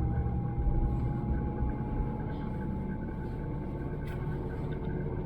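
Great Wall Hover H3 heard from inside the cabin while driving: steady engine and road rumble, with a thin whistle from the drive-belt idler pulley that rises slowly in pitch.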